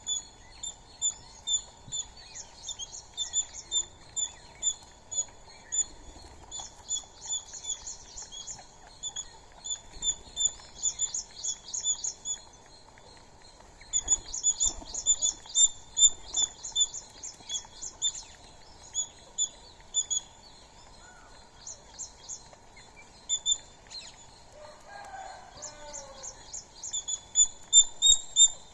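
Birds chirping: short, sharp, high-pitched chirps repeated in quick runs with brief pauses, and a lower call briefly about two-thirds of the way through.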